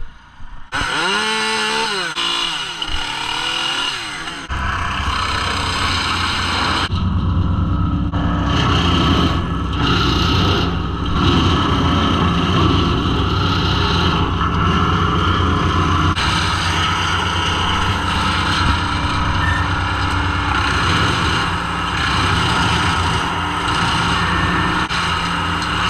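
Petrol engines of tree-removal equipment running: an engine revving up and down in the first few seconds, then machinery running steadily under load, with abrupt changes between shots.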